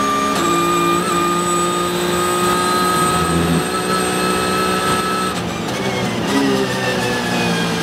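Porsche 911 GT3 Cup race car's flat-six engine at full throttle down a straight, heard from inside the cockpit, its pitch slowly rising. About five and a half seconds in, the car comes off the throttle and the engine note falls as it brakes.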